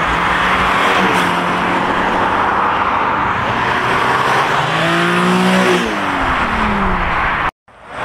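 Drift car sliding: tyres squealing over a hard-running engine, the engine note climbing about five seconds in and then dropping away. The sound cuts out abruptly near the end.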